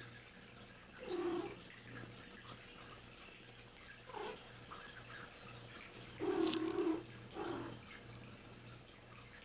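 Maine Coon cats giving four short meows, the loudest and longest, nearly a second, about six seconds in. A steady low hum and faint ticks lie underneath.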